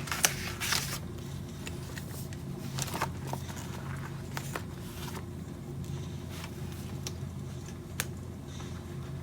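Desk study sounds: scattered light clicks and short rustles, such as stationery being handled, over a steady low room hum. The clicks are busiest in the first second.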